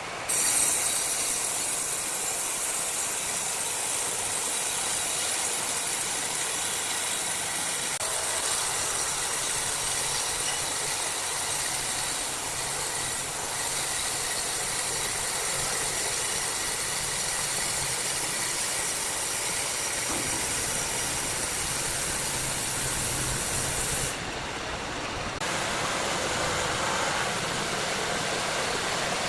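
Large sawmill saw cutting through wood: a steady, dense hiss, dipping briefly about four-fifths of the way through.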